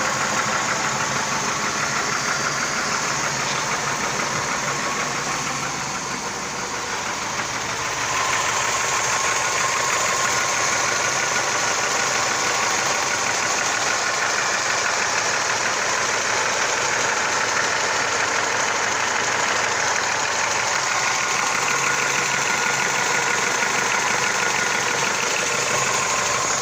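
Mazda 626 engine idling with a steady, rapid knocking tick running through it. The level dips briefly about six seconds in, then holds steady.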